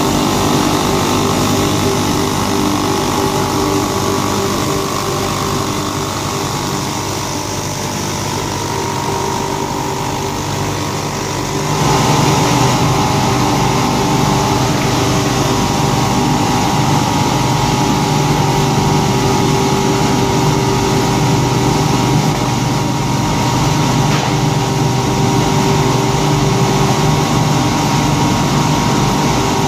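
Paper tube sanding and waxing machine running: its electric motors and sanding heads give a steady mechanical hum with a higher held tone over it. The sound steps up louder a little under halfway through and stays there.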